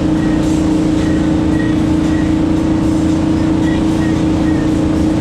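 A motor running steadily with an even hum, with faint short chirps now and then.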